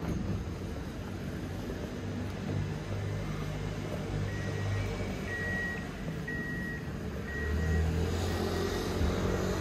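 Street traffic: a vehicle engine running low and steady, with four short high beeps about a second apart near the middle. The engine sound swells near the end as a vehicle comes closer.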